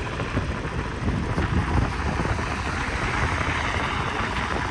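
Steady rumble and road noise of a vehicle travelling along a road, heard from on board.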